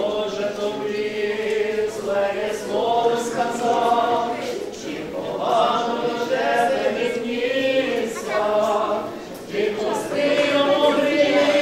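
Orthodox church choir singing unaccompanied liturgical chant, several voices holding long notes that move in steps.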